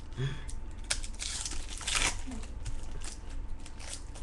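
Trading-card pack wrappers crinkling and tearing as packs are opened, with cards being handled: a few short rustles, the loudest about two seconds in.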